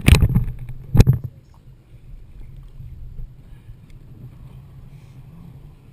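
Water slapping hard against a camera mounted on a towed bumper tube, once at the start and again about a second in. A steady low rumble of the tube ride over the water follows.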